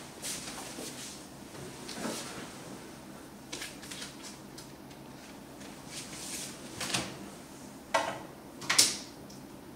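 A person moving about close by: scattered rustling and light handling knocks, with two louder handling sounds about a second apart near the end.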